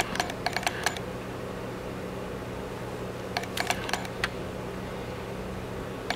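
Steady low room hum with two short clusters of small sharp clicks, the first in the opening second and the second about three and a half seconds in.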